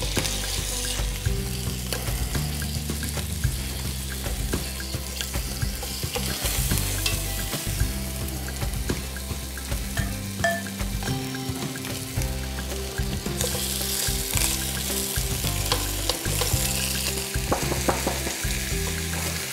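Rabbit pieces sizzling steadily as they brown in oil in an enamelled cast-iron casserole, with scattered light clicks of metal tongs turning them against the pot.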